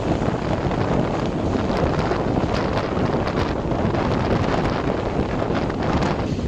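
Wind buffeting the microphone, held out of the window of a moving railway carriage, over the steady running noise of the train on the track.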